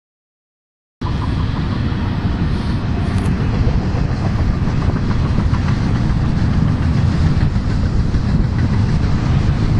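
A freight train passing: a set of diesel locomotives running as they haul double-stack container cars, with a steady low rumble. The sound cuts in abruptly about a second in.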